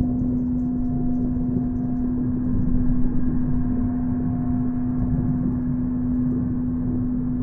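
A steady low hum held on one pitch throughout, over a dense rumbling noise, with a fainter higher tone that fades out about two-thirds of the way in.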